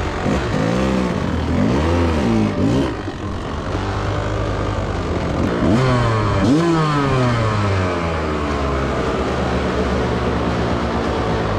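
Dirt bike engine revving up and falling back three times, with steadier running between. It sounds crisp: the exhaust has just been cleared of carbon buildup, and the bike runs a lot better for it.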